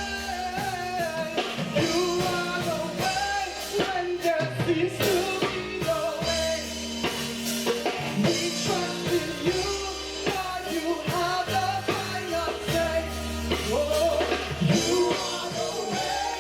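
Gospel praise team singing with a live band: voices carrying a melody over bass and a drum kit.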